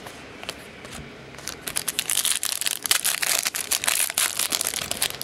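Trading card pack wrapper crinkling as it is handled and opened: a dense run of sharp crackles that starts about a second and a half in.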